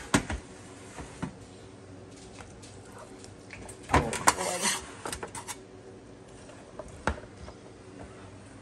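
Metal tongs clinking and scraping against a metal baking sheet while racks of soft, pressure-cooked ribs are moved onto it. It comes as a few scattered clicks, with a louder clatter about four seconds in.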